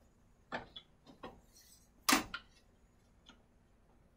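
A handful of light metal clicks and taps as a sliding bevel gauge is handled and set to an angle. The clicks are irregular, and the sharpest comes about halfway through.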